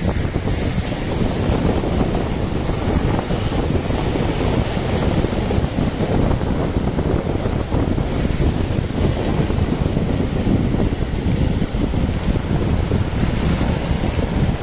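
Wind buffeting the microphone over the rush of sea surf: a steady, loud, rough rumble.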